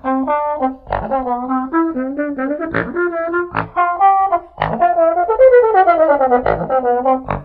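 Trombone playing a melody of short, separated notes, with a slide in pitch about five to six and a half seconds in. Short thumps land roughly once a second beneath it.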